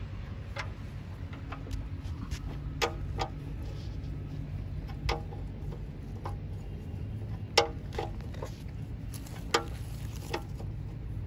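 Wrench and socket clinking on metal, about a dozen irregular sharp clicks, as a sump drain plug is loosened for an oil change, over a low steady hum.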